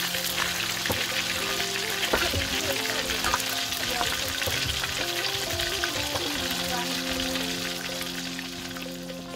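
Whole river fish deep-frying in hot oil in a steel wok: a steady sizzle full of fine crackling pops, easing slightly toward the end.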